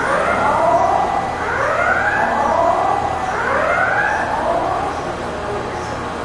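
A siren rising in pitch over and over, about one sweep every one and a half to two seconds, fading out about two-thirds of the way through, over a steady low engine rumble.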